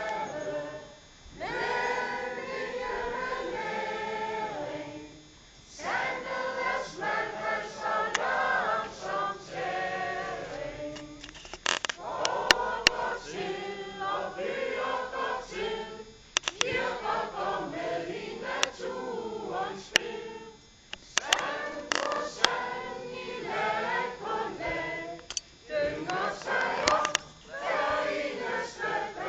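A group of mixed voices singing unaccompanied as a choir, in phrases separated by short pauses. A few sharp clicks sound midway.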